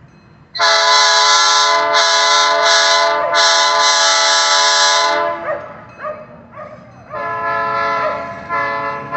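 Locomotive air horn sounding a loud, steady multi-tone chord. The first long blast starts about half a second in, is broken briefly twice, and fades out around five seconds. A second long blast starts about seven seconds in and is still sounding at the end.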